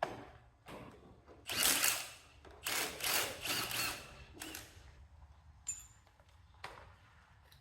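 Hand wrench work on a nut in the steering linkage: several short bursts of rapid ratchet clicking, with metal clinks and one brief ringing clink near the end.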